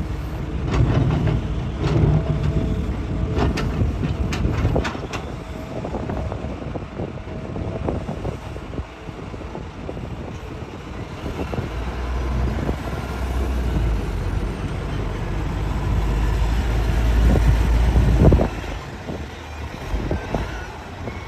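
Hitachi excavator digging rock: a run of sharp knocks and clanks during the first five seconds, then the diesel engine pulling harder under load, growing louder for several seconds before dropping off suddenly near the end.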